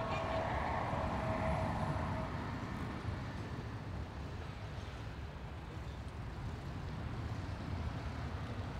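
Low, steady road and engine rumble of a car driving along a city street. A thin steady tone stops a little over two seconds in.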